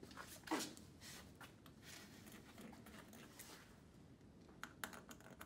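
Faint handling sounds, light scratching and a few soft clicks, as mounting holes for a hydraulic switching valve are marked on a tractor's dash panel.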